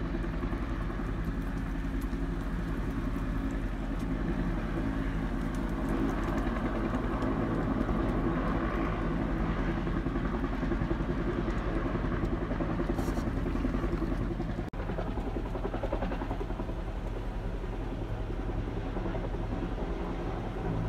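Utility helicopter hovering on a long line, its rotor and turbine making a steady drone with a rapid rotor beat. The sound drops out for an instant about two-thirds of the way through.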